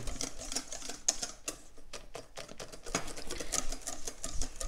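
Wire whisk beating thick chocolate cake batter in a stainless steel bowl: a fast, uneven run of clicks and scrapes as the wires strike the metal. This is the stage where starch and cocoa powder are worked into a smooth batter.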